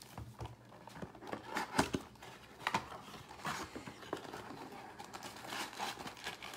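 A cardboard trading-card blaster box being handled and opened by hand: scattered crinkles, scrapes and light taps, with a few sharper clicks as the box is turned and its flap pulled open.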